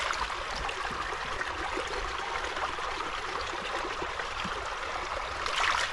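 Running water trickling and splashing steadily, growing a little louder near the end.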